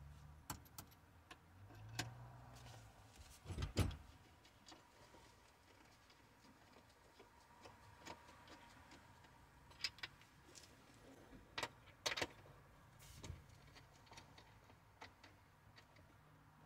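Scattered light metallic clicks and taps of hand tools and mounting nuts being worked onto a steering column, with one louder knock about four seconds in.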